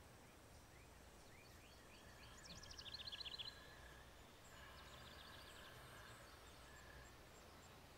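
Faint ambience with small birds chirping: short rising chirps, then a quick trill about two and a half seconds in and a softer run of notes around five seconds.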